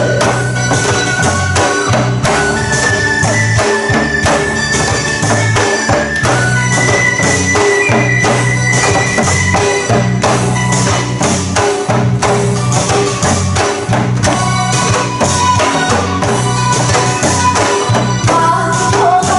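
Loud instrumental music with a busy percussion beat, a steady repeating bass line and long held melody notes.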